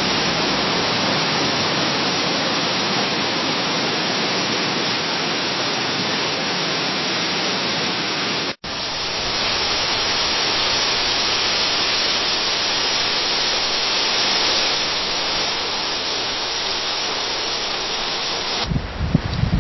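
Leaves rustling in the wind as a steady, even hiss, which cuts out for an instant about eight and a half seconds in and resumes. Near the end a different recording takes over, with gusts of low wind rumble under the rustling.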